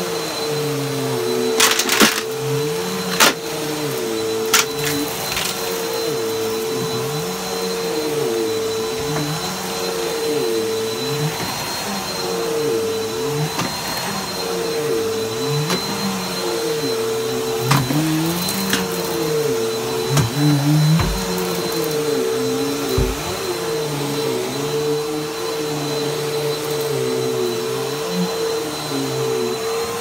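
Upright vacuum cleaner running on carpet, its motor hum wavering up and down in pitch every couple of seconds as it is pushed back and forth. A few sharp clicks, most of them within the first five seconds and one more past halfway, as debris is picked up or the head bumps.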